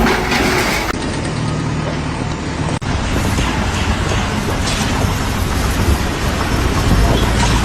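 Engine noise of heavy vehicles running, a dense rumbling haze, with abrupt changes in sound where clips are cut together and a brief dropout about three seconds in.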